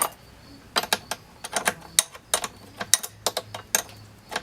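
Ratchet wrench with a 14 mm socket clicking in short runs as a nut is backed off.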